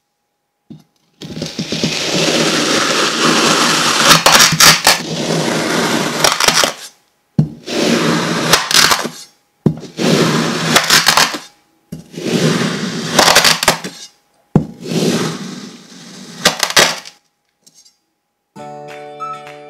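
A large steel knife slicing down through a block of kinetic sand, making a loud gritty, crunching scrape with crackles. There are five cuts: a long first one of about six seconds, then four shorter ones of about two seconds each. Plucked-string music starts near the end.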